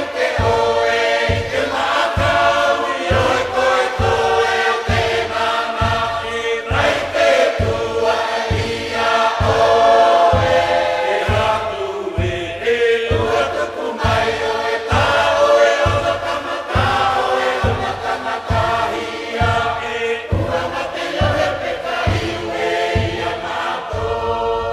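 Music: a choir singing in harmony over a steady low drum beat of about two beats a second.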